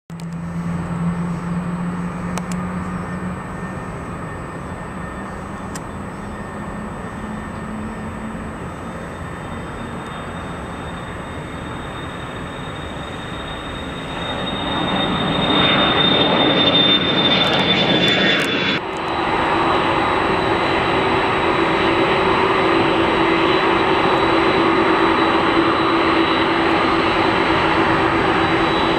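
Boeing 737-300 jet engines (CFM56-3 turbofans) at takeoff thrust. The sound swells as the airliner climbs out overhead, with a high fan whine that slowly falls in pitch. After a sudden cut near the middle, a steady jet roar with a low drone continues.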